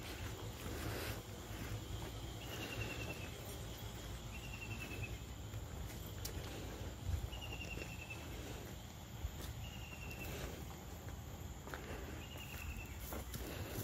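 Short, high, slightly falling chirping call from a small animal, repeated about every two to three seconds, over a steady low rumble of outdoor background noise.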